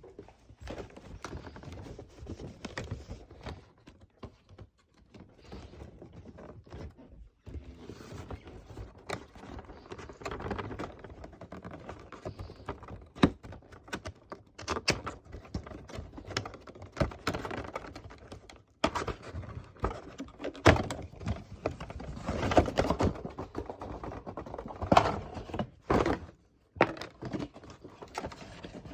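A diecast model car's box being handled and opened: irregular knocks, clicks and rustling.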